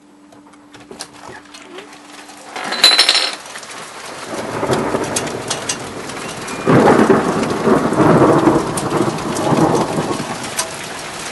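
A window opening with a brief loud clatter about three seconds in, then heavy rain falling and a loud rolling thunderclap starting about two-thirds of the way through and rumbling for several seconds.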